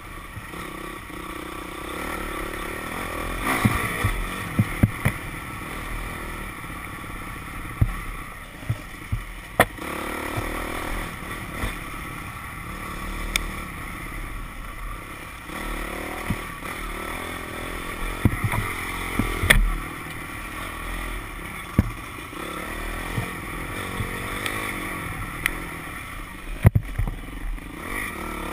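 Dirt bike engine running and revving up and down while the bike rides a rough trail, with frequent sharp knocks and clatter as it bounces over bumps.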